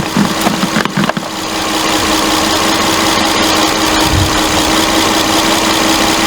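Car engine idling with a steady hum, with a few brief handling knocks and rustles about a second in.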